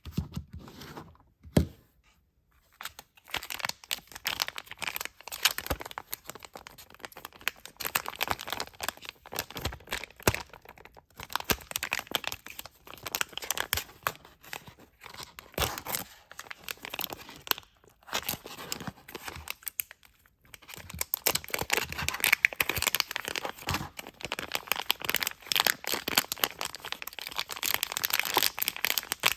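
Toy packaging being torn open and crinkled by hand: a dense crackling rustle that runs in long stretches, broken by a few brief pauses.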